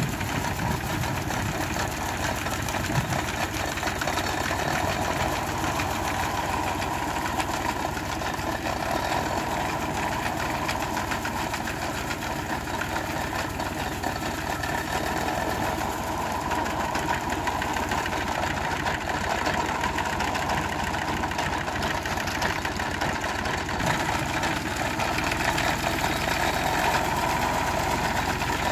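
Volvo BM 430 tractor engine running steadily while an International Harvester sickle bar mower's reciprocating knife chatters rapidly, cutting oats.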